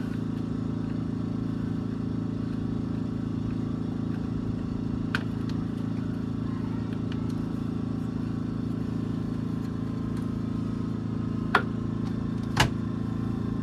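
A steady low mechanical hum, with three sharp clicks or knocks: one about five seconds in and two close together near the end.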